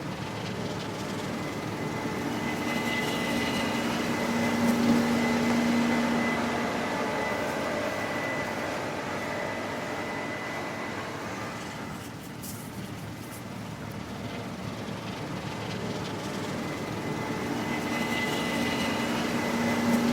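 Case IH 8250 combine running steadily while harvesting wheat, with a low engine hum and a high whine. It grows louder around five seconds in and again near the end.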